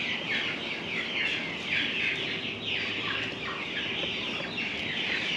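A flock of young meat chickens peeping: many short, high, falling peeps overlapping without a break.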